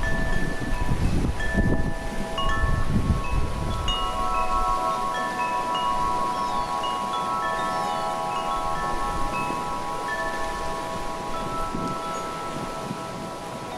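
Wind chime ringing, its tubes struck one after another so that several clear tones overlap and ring on. Gusts of wind rumble on the microphone in the first few seconds.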